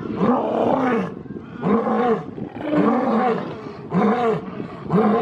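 A lion's roaring grunts, a run of about six short calls roughly one a second, each rising and falling in pitch.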